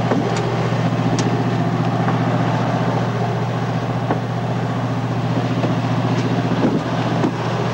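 Boat engine running at a steady low drone, with a few faint knocks.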